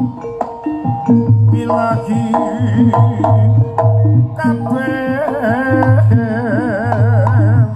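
Jaranan gamelan music: regular kendang drum strokes under a wavering melody line with strong vibrato, which slides upward about five seconds in.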